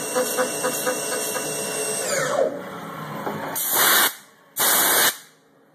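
Haas TM2 toolroom mill cutting a slot in A2 tool steel with a 3/8-inch carbide end mill at 3,750 RPM on a high-speed toolpath, the cutting noise pulsing about four times a second as the tool sweeps in and out of the cut. About two seconds in the cut ends and the spindle winds down with a falling whine, followed by two loud bursts of hiss, each about half a second.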